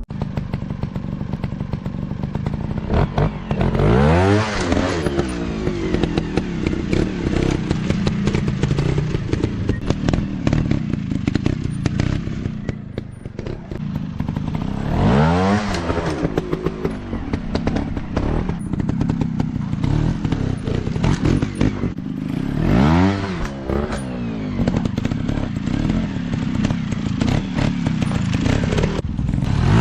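Off-road trail motorcycle engine running, revving up and back down about four times, with frequent knocks and clatter throughout.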